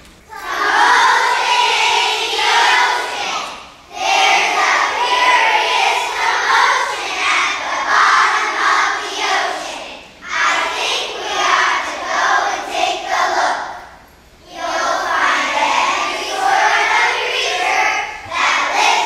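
A large group of young children singing together in unison, in phrases of a few seconds with short breaks between them.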